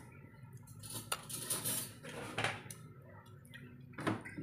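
Faint clinks, knocks and rustles of a plate and dishes on a table as someone eats grilled chicken and rice by hand, a few short clicks scattered through it.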